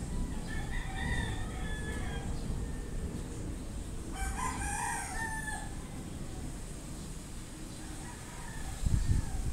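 Roosters crowing: a crow about half a second in, a louder one about four seconds in, and a faint one near the end, over a steady low rushing noise. A brief low thump near the end is the loudest moment.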